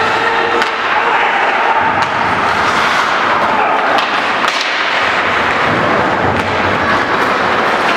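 Ice hockey play in an indoor rink: a steady scraping hiss of skates on the ice, broken by a scattering of sharp knocks from sticks and puck.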